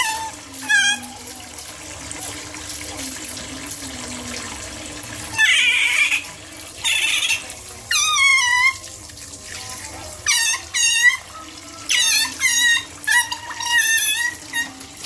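Tap water running and splashing into a plastic basin, while an otter gives repeated high-pitched squeaking chirps, mostly in quick clusters from about five seconds in.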